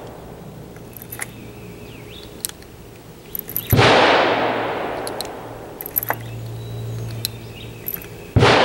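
Two gunshots, each a sharp crack with a long echoing fade, about four seconds in and again near the end. Between them come faint clicks of revolver cartridges being pushed one at a time into a speed loader.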